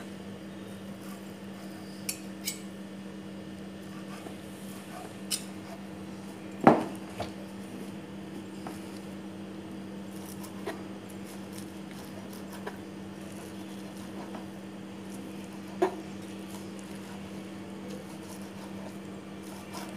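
Kitchen knife tapping now and then through thin egg omelette onto a plastic cutting board, with metal clinks from the spoon holding the omelette; the loudest is a ringing clink about seven seconds in. A steady low hum runs underneath.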